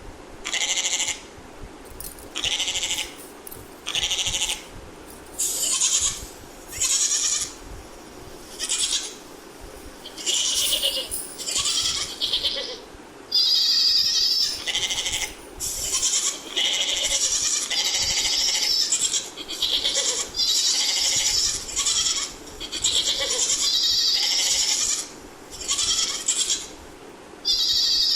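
Goats bleating over and over, a call about every second, some calls running into each other with hardly a gap.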